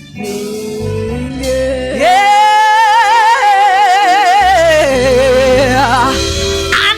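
Gospel worship song: a singer holds one long, wavering note with vibrato over a steady instrumental backing. The note comes in about two seconds in and steps down near the end.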